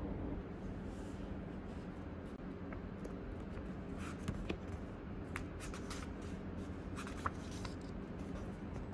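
Light rustling and small clicks over a steady low hum, scattered through the middle of the stretch.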